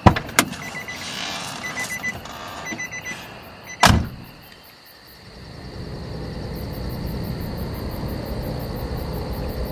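A car door unlatched with a sharp click, then short runs of quick electronic beeps from the car's door-open chime, and the door slammed shut about four seconds in. A steady low rumble builds after the slam.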